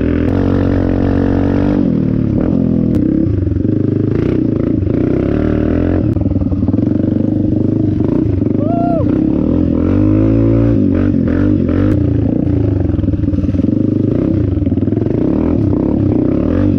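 Dirt bike engine running close up, its pitch rising and falling again and again as the throttle is worked, with scattered knocks and clatter from the bike over rough ground.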